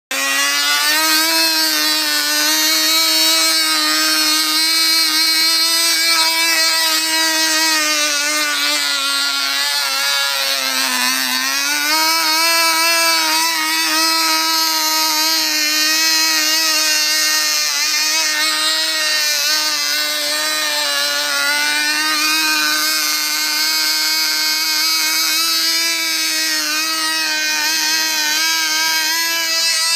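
Cox model airplane glow engine running flat out at one fixed speed, a loud high-pitched buzzing whine; a dead throttle servo leaves it stuck at that single speed. Its pitch sags briefly about ten seconds in, then climbs back and holds steady.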